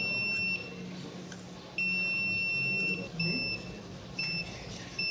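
Digital multimeter's continuity beeper sounding in a high steady tone as the probes touch a diode's leads, in uneven beeps: one at the start, a long one a couple of seconds in, then short ones. The beep marks a short-circuited diode on the power supply board.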